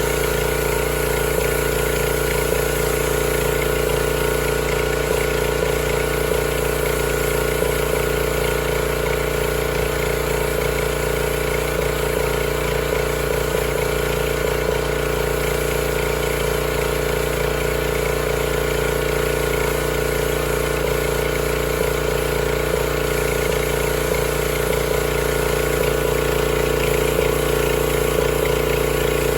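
Engine-driven pressure washer running steadily at a constant speed.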